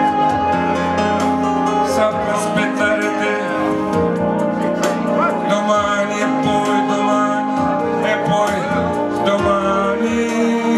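Music: an instrumental passage of an Italian pop song played through a PA, with held chords and drum hits.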